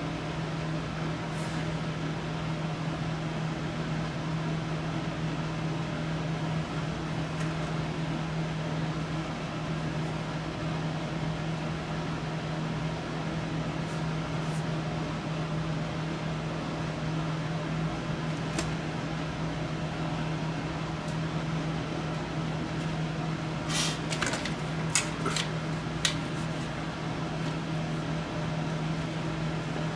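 Steady machine hum with a low tone throughout, like a fan or air conditioner running in a small room. A few sharp clicks come close together late on.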